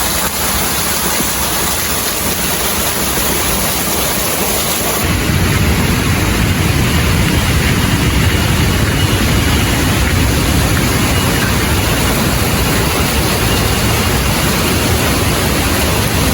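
Waterfall in monsoon flow, a loud steady rush of falling water; about five seconds in it becomes deeper and louder.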